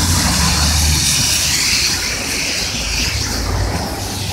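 Rustling and rubbing of a nylon winter coat against the camera's microphone, over a steady low rumble.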